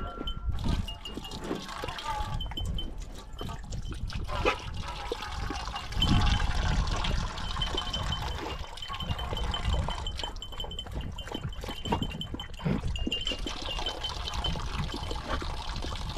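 A bird dog's collar bell tinkling on and off as the dog laps water from a bowl.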